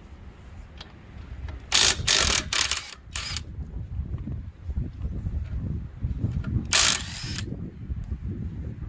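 Short, loud bursts of a power impact wrench loosening wheel lug nuts: a cluster of several bursts about two seconds in and one more at about seven seconds. A low wind rumble runs under them.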